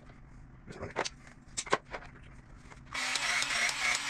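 A few light clicks and knocks, then a cordless drill runs for about a second near the end with a steady high whine.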